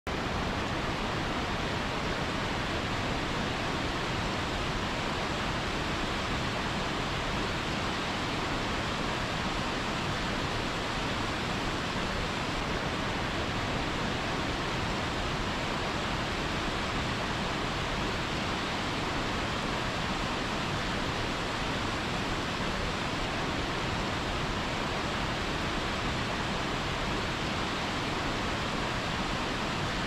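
Waterfall pouring onto boulders into a pool: a steady, unbroken rush of water.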